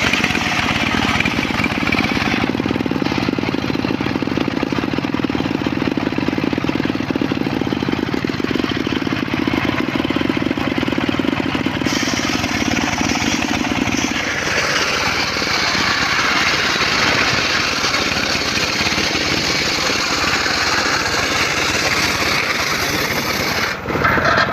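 Circular saw running and cutting mahogany, a loud steady machine noise whose character changes about halfway through, turning brighter and higher.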